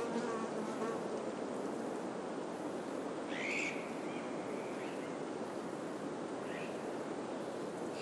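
Steady wind through pine trees. An insect buzzes briefly near the start, and a bird gives a short rising call about three seconds in and a shorter one a few seconds later.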